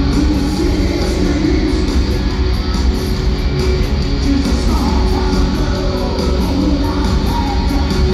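Loud rock music with guitar playing steadily.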